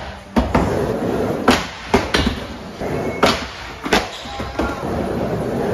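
Skateboard wheels rolling on a wooden mini ramp, broken by about six sharp clacks and slaps as the board is popped, flipped and landed.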